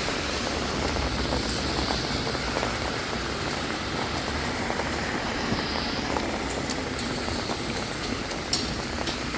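Steady heavy rain, an even hiss with a low rumble underneath, and a couple of sharp taps near the end.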